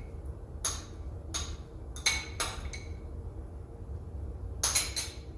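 Utensils and dishes clinking: a string of light, irregular clinks and taps as garnish is spooned onto bowls of soup, with a few quick ones in a row near the end.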